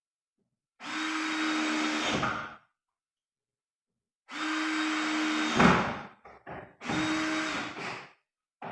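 Electric drill running in three bursts of one to two seconds each, with silence between them, typical of driving screws while fitting a wardrobe door.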